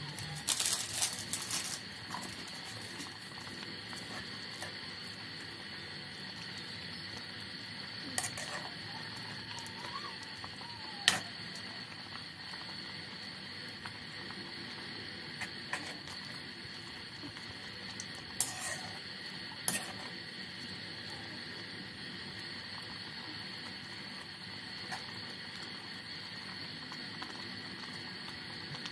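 Broth simmering in a wok with a steady hiss, and a few sharp clicks of a metal ladle against the wok as noodles are stirred.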